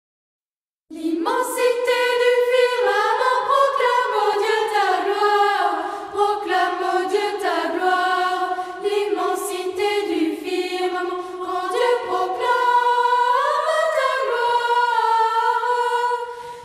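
Unaccompanied choral singing as background music: several voices singing together in harmony, starting about a second in.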